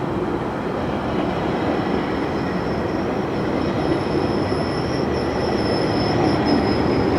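GO Transit commuter train rolling along the track, a steady heavy rumble of wheels on rails. A thin high squeal comes in about three and a half seconds in and holds.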